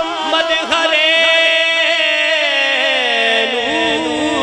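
A man chanting a devotional naat in long, drawn-out melismatic notes through a sound system. The held notes waver, then slide slowly down in pitch, and a new held note begins about three and a half seconds in.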